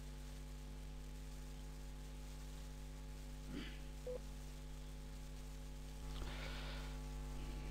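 Steady electrical mains hum, with a brief soft noise about three and a half seconds in and a faint hiss from about six seconds.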